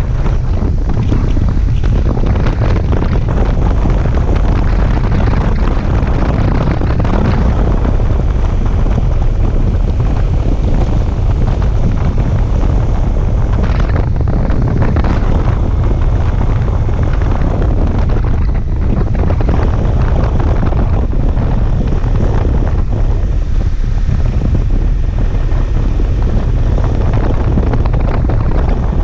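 Wind buffeting the microphone of a moving sport motorcycle: a loud, steady low rumble of wind and riding noise, with no clear engine note standing out.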